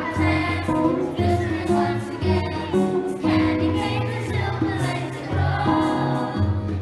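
A Christmas carol sung by a choir over instrumental accompaniment, with held notes and a bass line that moves every second or so.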